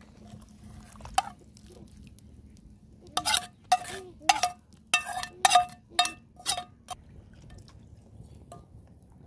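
Metal cookware clinking: a frying pan rapped against the rim of a steel pot to empty fried onions into it, one clink about a second in, then a run of about eight sharp, ringing clinks over some four seconds.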